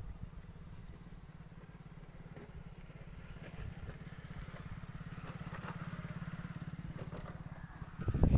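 An engine running steadily with a fast, even low beat.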